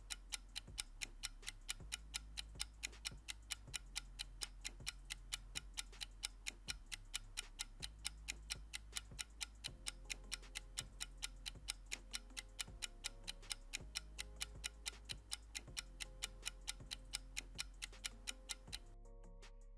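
Clock-ticking sound effect marking the timed answer pause: rapid, even ticks over a soft, low music bed. The ticking stops about a second before the end, leaving the music.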